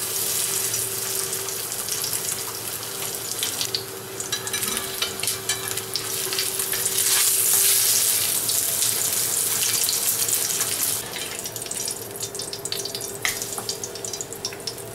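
Spice-rubbed lamb rib roll searing in hot oil in a cast-iron frying pan: loud, steady sizzling, with clicks of the spatula against the pan as it is turned. About eleven seconds in the sizzle thins to scattered crackles of oil and spices.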